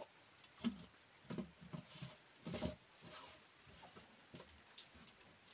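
Faint, scattered clicks and light knocks of a spoon and cooking pot being handled over a wood fire as pork lard is spooned into the pan, the loudest knock about two and a half seconds in.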